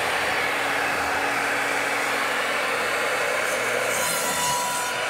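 Electric miter saw running steadily, its spinning blade cutting through wood.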